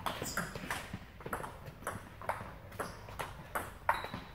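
Table tennis ball being hit back and forth in a fast rally: sharp clicks of the ball on the bats and bouncing on the table, about three a second.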